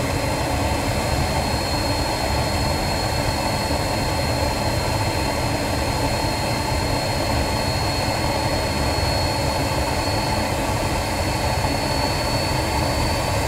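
Homemade JJ52 turbojet, built around a turbocharger and fitted with a new combustor, running steadily: a constant high whine over a rush of combustion and air noise. The whine rises slightly near the end.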